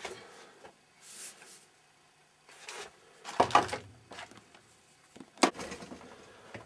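Close-up handling noises from pipe and fittings being moved and fitted: scattered rustles and clunks, with one sharp knock about five and a half seconds in.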